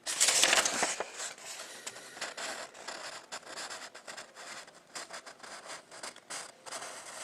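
Scraping, scratching and rustling of things being handled at close range, with a short rush of noise in the first second, then many small clicks and scrapes.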